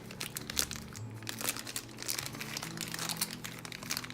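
Foil blind-bag packaging crinkling and rustling as it is handled and torn open by hand, in a dense run of irregular crackles.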